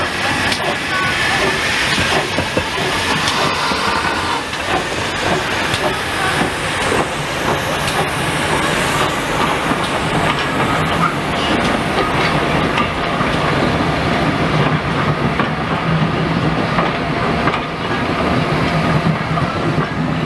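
GWR 6400-class pannier tank steam locomotive No. 6430 hauling coaches past, steam hissing, then the carriages rolling by with their wheels clicking over the rail joints.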